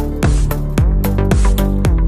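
Background electronic dance music with a steady kick-drum beat, about two beats a second, over sustained synth chords.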